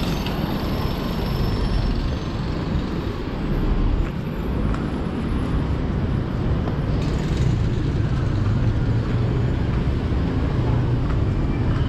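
Steady road traffic noise of cars running on the street below, mostly low-pitched and even, with no single event standing out.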